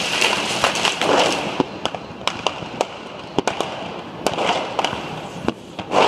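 Fireworks and firecrackers going off: many sharp bangs at irregular intervals, mixed with a few longer rushes of noise, the loudest near the end.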